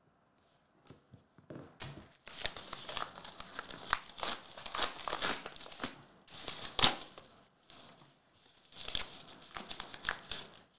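A padded bag being torn open and crumpled by hand, with crinkling and ripping starting about a second in and pausing briefly about three-quarters through.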